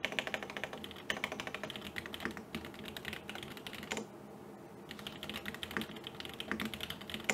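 Typing on a computer keyboard: a quick run of keystrokes, a pause broken by a single key press about four seconds in, then a second run that ends in a sharper key press.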